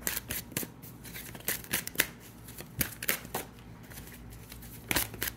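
Tarot cards being shuffled by hand: sharp card snaps and flicks come in several short irregular bursts.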